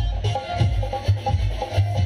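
Loud dance-band music: a fast, repeating electronic keyboard melody over a steady drum beat.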